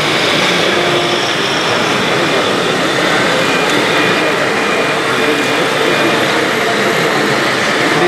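Steady mixed noise of radio-controlled model construction machines working in a busy exhibition hall, with background chatter. In the middle comes a short run of evenly spaced high beeps.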